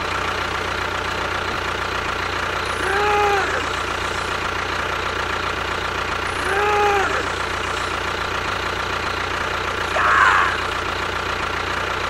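Tractor engine idling steadily with a low, even drone. Two short sounds rise and fall in pitch about 3 and 7 seconds in.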